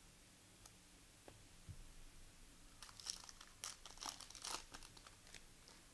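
Foil wrapper of a trading card pack being torn open and crinkled: a burst of crackly rustling from about three seconds in until near the end, after a few faint ticks.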